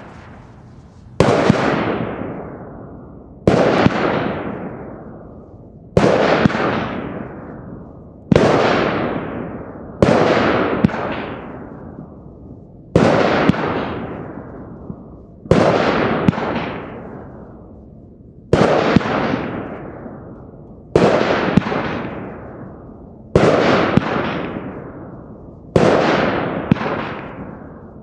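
A Nico Golden Spider fireworks battery firing shot after shot. There are about a dozen sharp bangs, roughly one every two to two and a half seconds and sometimes two close together. Each bang is followed by a hiss that fades away over about two seconds.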